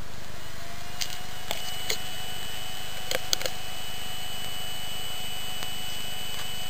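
Slot 1 motherboard PC powering up: a steady electrical whine settles in about half a second in and a higher steady tone joins it, over a constant low hum. A few sharp clicks come in the first few seconds.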